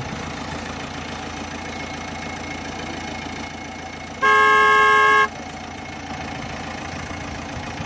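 Truck sound effect: a steady engine rumble, with one loud horn blast lasting about a second, about four seconds in.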